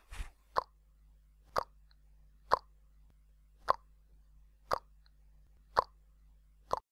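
A steady series of short, sharp clicks, seven in all, about one a second, over a faint steady low hum.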